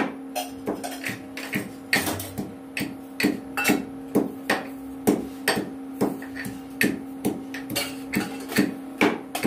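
Repeated knocks of hand food preparation at a kitchen counter, about two strikes a second at a steady pace, over a steady low hum.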